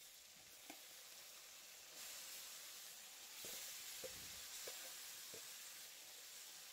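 Chopped bottle gourd sizzling as it fries in hot oil in an aluminium wok, getting louder about two seconds in, with a few light taps of the spatula against the pan.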